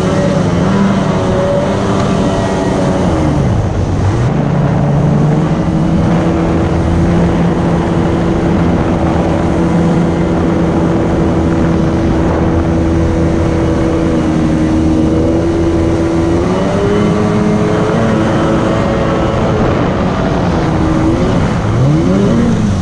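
Jet jon boat's outboard jet motor running under way at a steady pitch. The engine note drops and climbs back about three seconds in, and again near the end as the throttle is eased off and opened up.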